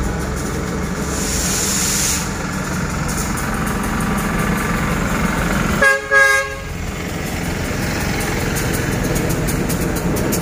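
A 1978 Henschel BB 303 diesel-hydraulic locomotive running slowly, with the steady low drone of its diesel engine, gives two short horn toots a little past halfway.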